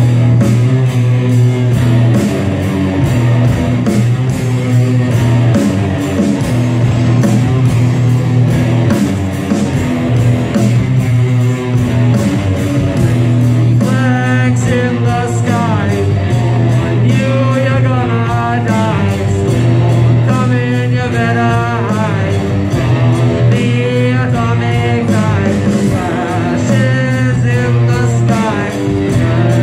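Live rock band playing at full volume: electric guitars, bass and drums in a steady beat, with a singer coming in about halfway through.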